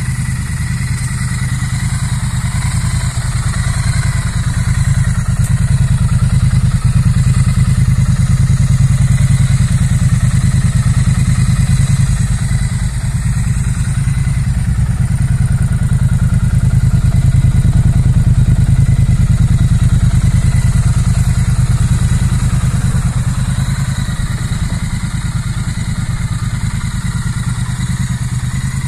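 2016 Triumph Street Twin's 900cc parallel-twin engine idling steadily.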